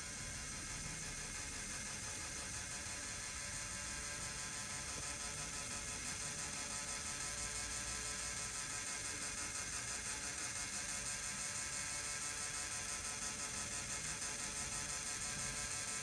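LEGO Technic sun-and-planet gear mechanism running, its plastic gears and linkage whirring steadily with a regular pulse a few times a second.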